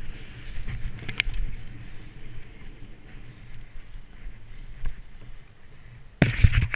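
Mountain bike rolling along a dirt trail: a steady low rumble of tyres and wind on the mounted camera, with sharp rattles and clicks from the bike. Near the end a sudden loud rubbing and knocking right on the camera.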